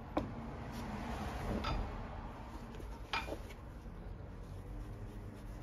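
Three light clicks and knocks, about a second and a half apart, from a bottle and a leather boot being handled on a workbench, over a low steady background hum.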